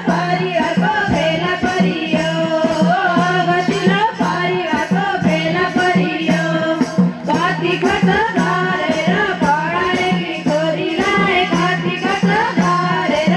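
Nepali Teej folk song: women singing a melody over a madal drum beat.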